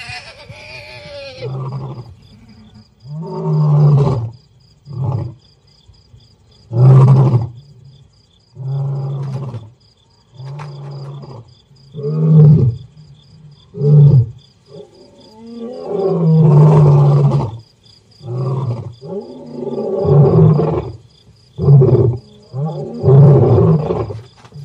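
Male lion roaring in a long bout: a series of deep grunting roars, one every second or two, starting about a second and a half in. A steady insect trill runs behind.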